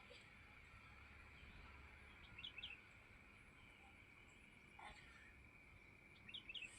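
Near silence with a faint steady high whine. A small bird gives a quick few chirps about two and a half seconds in and again near the end.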